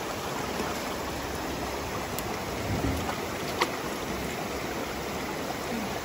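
Shallow stream running over rocks, a steady rush of water, with one brief sharp click a little past halfway.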